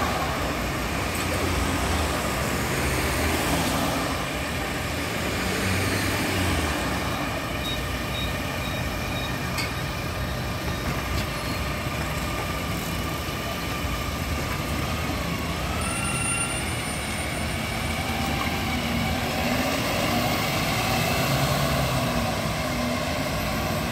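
Otokar Kent C 18 articulated city bus's diesel engine running as it pulls away from a stop and drives off, with steady street traffic noise around it.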